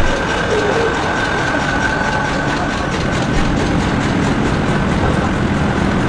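Matchstick-making machinery running: a steady mechanical din with a fast, even clatter and a steady high whine.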